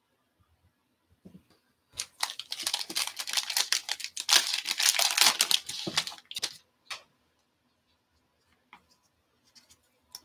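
Foil wrapper of a 2020 Topps Tribute baseball card pack being torn open and crinkled by hand, a crackling rustle lasting about four seconds, followed by a few faint ticks.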